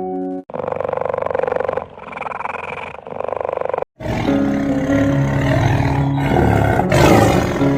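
A big cat roaring twice, each a rough, pulsing call lasting over a second, followed by background music from about four seconds in.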